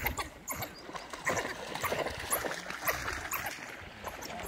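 Water splashing as a young kudu swims and an African wild dog runs through the shallows, with short calls from the wild dogs.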